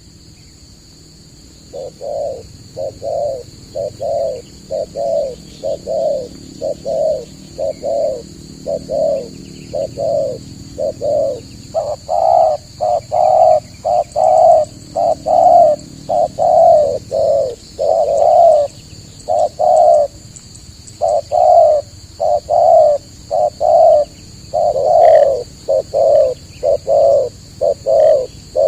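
Spotted dove (tekukur) cooing: a long run of short, evenly repeated coos, about two a second, starting about two seconds in and growing louder about twelve seconds in.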